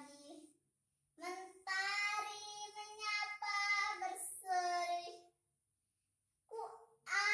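A young girl reciting an Indonesian poem in a drawn-out, sing-song voice. Her phrases hold long vowels, with pauses between them: one long phrase about a second in, then a silent gap before she starts again near the end.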